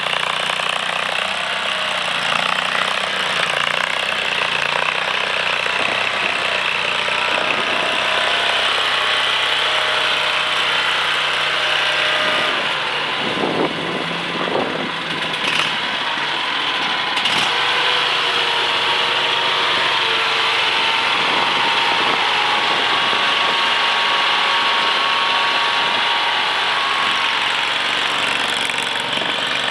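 2024 AGT LRT23 mini skid steer engine running steadily. Its pitch shifts a little now and then, with a brief dip and recovery in engine speed about halfway through.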